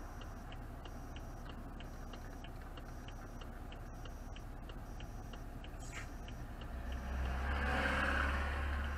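Car's turn-signal indicator ticking in a steady tick-tock, about three ticks a second, over a low engine idle. Near the end the engine hum grows louder as the car starts to move off.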